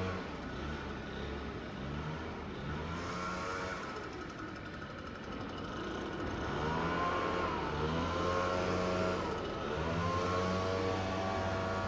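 Garbage truck engine running, its pitch rising and falling twice, about halfway through and again near the end, over a steady low hum.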